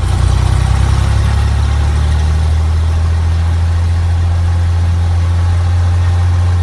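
Cessna 182's six-cylinder piston engine and propeller running steadily at run-up power, around 1,700 to 1,800 rpm, for the pre-takeoff engine check just before the magnetos are tested, heard from inside the cabin as a deep, even drone.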